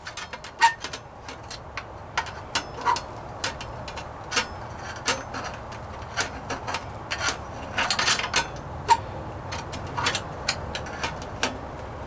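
Hammer tapping a steel floor-pan patch against a block to form a stiffening bead: a run of irregular sharp metal taps, about two a second, some with a short ring, over a steady low hum.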